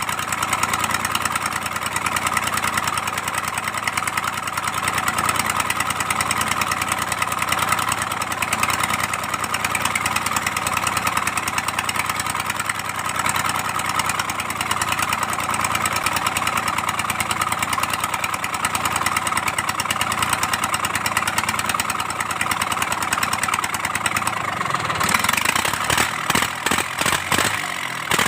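Kubota D1402 three-cylinder diesel engine of an L2402 tractor idling steadily. About three seconds before the end the even sound breaks into a few seconds of uneven, choppy pulses.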